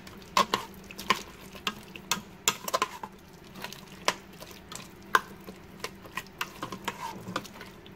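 A spoon stirring thick chili of beans, tomato and meat in the Fissler multipot's inner pot: wet, irregular scraping with sharp clicks of the spoon knocking the pot.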